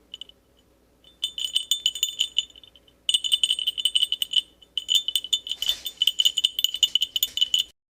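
Metal-detecting pinpointer sounding its alert: a high, fast-pulsing beep in three bursts, the last and longest cutting off suddenly near the end. The alert signals metal right at the probe tip.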